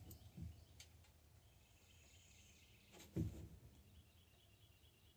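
Near-silent workshop room tone with a few light clicks and one sharper knock about three seconds in, as of a bicycle part being handled or set down; faint high chirps in the background.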